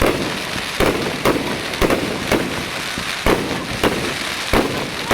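Fireworks bursting overhead: a steady run of sharp bangs, about two a second at uneven spacing, each trailing off in a brief echo.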